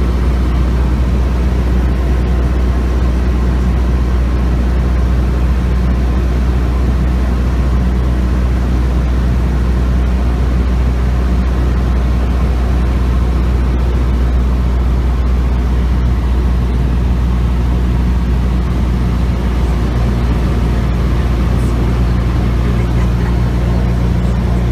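Cessna 172's piston engine and propeller droning steadily in flight, heard inside the cabin, with a slight shift in the pitch of the hum about twenty seconds in.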